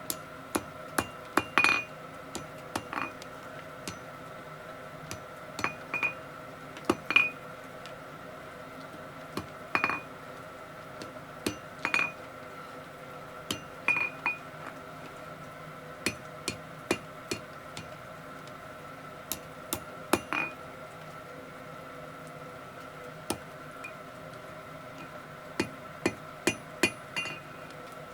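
Blacksmith's hammer striking steel on an anvil in light, irregular blows, singly and in quick clusters, each with a short bright metallic ring. A steady hum runs underneath.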